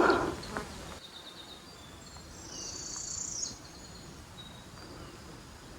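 Woodland songbirds calling: a short run of high notes about a second in, then a louder, higher trill lasting about a second around the middle, with a few faint notes after.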